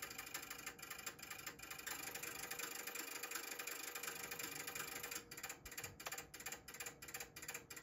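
Relays in the Elecraft KPA1500 amplifier's built-in antenna tuner clicking in an irregular rapid series as it hunts for a match for a 40 m doublet. The wet ladder line has thrown the SWR so far off that the tuner cannot correct it.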